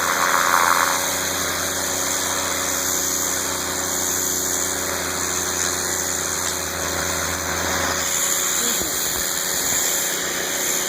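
Gas pressure washer with a 9 hp Honda GX engine running steadily under the hiss of the water spray from its turbo nozzle. The engine's low hum drops away about eight seconds in.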